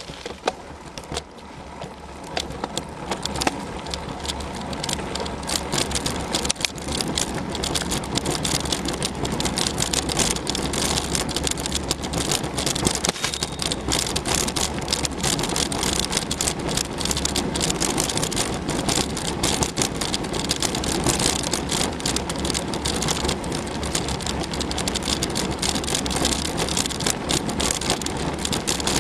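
Mountain bike ridden along a dirt trail: a steady rushing noise with frequent rattles and knocks, building over the first few seconds as it picks up speed.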